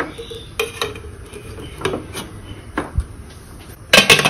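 Stainless steel pressure cooker and its inner container knocking and clinking as the container is set inside and the lid is put on and closed. The clinks come one at a time with a short ring, and the loudest clatter, as the lid goes on, comes about four seconds in.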